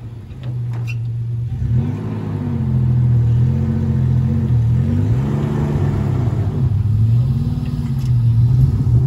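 Four-wheel-drive engines revving up and down repeatedly under load while one 4WD tows another that is bogged in soft sand on a recovery strap.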